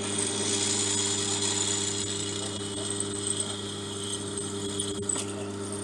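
Bench drill press running with a steady motor hum while its drill bit cuts into an aluminium plate. The high cutting sound grows louder, then stops abruptly about five seconds in, leaving the motor running on its own.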